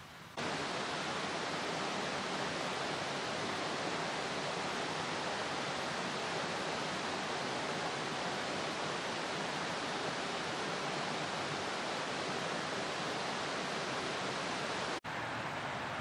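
Steady rushing of a forest stream or waterfall, an even hiss of running water that starts abruptly about half a second in and breaks off for an instant near the end.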